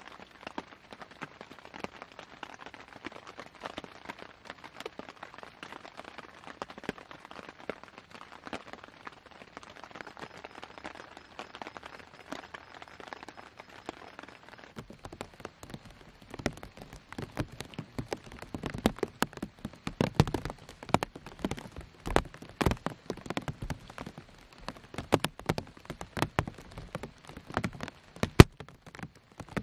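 Rain falling: a dense, fine patter at first, then from about halfway louder, scattered separate drops landing with duller knocks.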